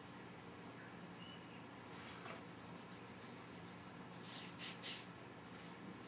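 Bodum Santos electric vacuum coffee maker at the end of its drawdown: faint hissing and sputtering as the vacuum pulls the last coffee and air down through the filter screen into the carafe, with two louder hissing spurts about four to five seconds in, over a low steady hum.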